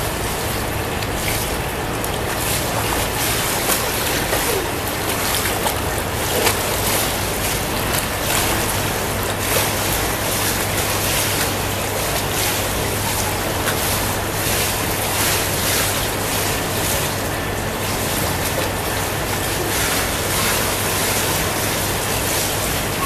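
Steady rush of pool water and wind noise on the microphone, with a low steady hum under it and light splashing from a child swimming strokes.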